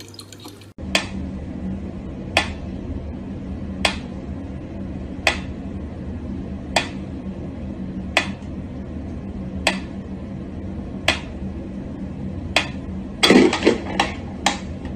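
Mechanical pendulum metronome ticking slowly, about one sharp tick every one and a half seconds, over a steady low hum. Near the end a quick cluster of louder knocks and clicks breaks in.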